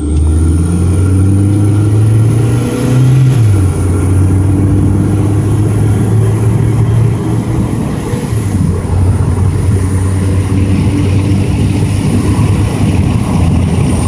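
Mazda 626's four-cylinder engine accelerating hard, heard from inside the cabin with the windows down; its pitch climbs, drops at a shift about three and a half seconds in, drops again near eight and a half seconds and climbs once more. A thin, steady high whistle from the bolt-in exhaust turbo whistle runs above it.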